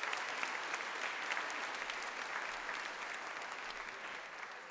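A large auditorium audience applauding, the clapping slowly dying away toward the end.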